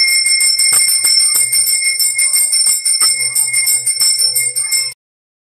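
Brass temple bell rung rapidly and continuously during an aarti offering to a Shiva lingam, stopping abruptly about five seconds in.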